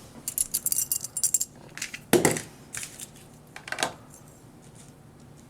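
Small hard toy parts of a die-cast and plastic figure clicking and clinking together as they are handled. There is a quick run of clicks at first, a louder knock about two seconds in, and a few more clicks before it goes quiet.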